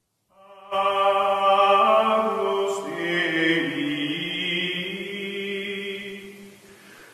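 Choral music: voices holding long sustained chords that shift slowly. It comes in about half a second in and fades away near the end.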